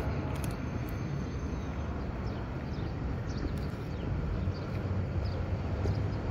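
Steady low machine-like rumble, with a few faint crisp clicks of a cat chewing dried fish.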